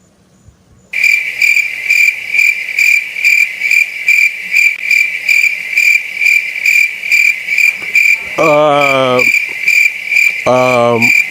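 Cricket chirping, about two to three chirps a second, cutting in suddenly after a second of silence: the stock sound effect for an awkward silence. A short steady-pitched vocal sound is heard twice near the end.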